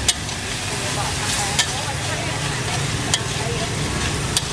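Stir-frying snails in a steel wok: a steady sizzle, with a metal spatula scraping the pan and clanking against it four times, about one and a half seconds apart.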